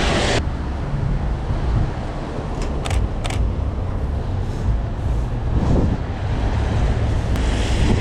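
Road traffic on a rain-wet street: tyre hiss and engine noise of passing cars over a steady low rumble. Two short clicks about three seconds in, half a second apart.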